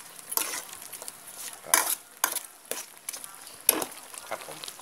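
A metal ladle stirring a coconut-milk frog curry in a metal pot, scraping and knocking against the pot about six times at an uneven pace, over a faint sizzle from the hot pot.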